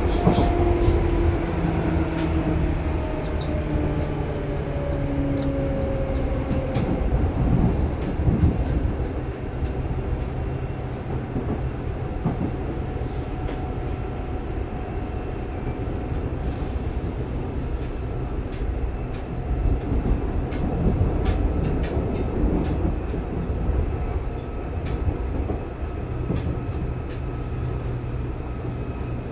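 Seibu 2000 series electric commuter train running on the line: a steady rumble with scattered wheel clicks, and a motor whine that falls in pitch over the first several seconds as the train slows.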